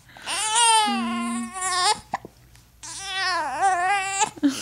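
Baby crying in two long wails, the second dipping in pitch midway, with a short sharp hiccup between them: an infant upset by a bout of hiccups.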